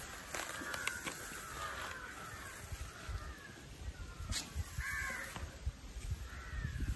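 Crows cawing a few times, about a second in and again around five seconds in, over the rustle of leafy turtle vine stems being pulled and handled.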